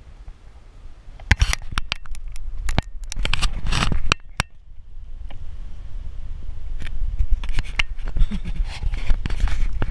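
Close-up scraping and clicking as hands, climbing rope and gear rub and knock against a tree trunk and the camera, over a low rumble. The sound comes in two bouts: a dense one from about a second in, and a more scattered one from just past halfway.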